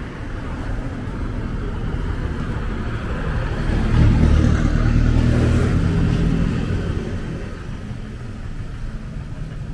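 A motor vehicle passing close by on the street, its engine rumble swelling to a peak about four to six seconds in and then fading away.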